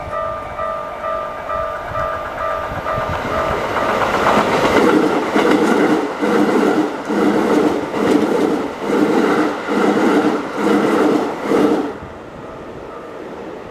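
Keikyu level-crossing bell ringing in quick repeated dings, about three a second. About four seconds in, a Keikyu Main Line train starts passing through the crossing, its wheels clacking in a steady rhythm for about eight seconds. The clacking cuts off suddenly as the last car clears.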